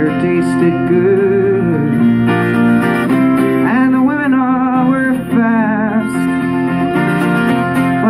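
A man singing a slow folk song with vibrato, over a twelve-string acoustic guitar played as accompaniment.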